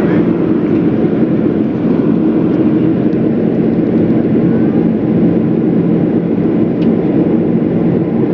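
Jet airliner's engines running steadily: a constant loud drone with a low, even hum underneath and no change in pitch.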